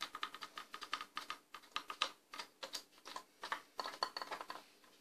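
Rapid, irregular clicking, several clicks a second, that sounds like typing on a keyboard, over a faint steady hum. The clicking stops abruptly at the end.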